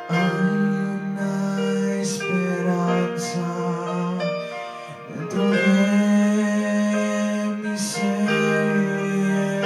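Live music: sustained chords played on an electronic keyboard, with a man singing into a microphone, both amplified through a PA.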